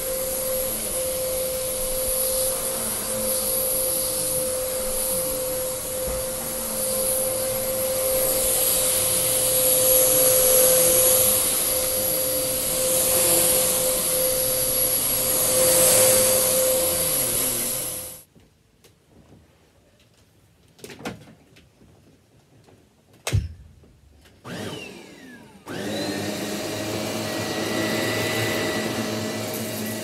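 Upright bagless vacuum cleaner running steadily over carpet with a constant hum, cutting off abruptly about two-thirds of the way in. After several seconds of near quiet broken by a few clicks, a second upright vacuum, a Shark Navigator, starts running near the end.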